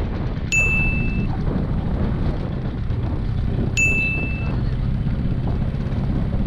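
Bajaj Chetak scooter engine running steadily while riding, with a low rumble of wind and road noise. A short, bright, high ding sounds twice, about half a second in and again a little before four seconds in.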